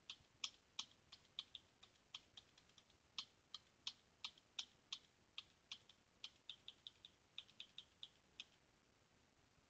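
Keystrokes on a computer keyboard: a run of separate key taps at an uneven pace, stopping about a second before the end.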